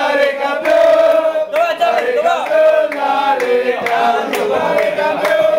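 A group of men chanting and singing together in unison, a loud celebratory chant with long held notes.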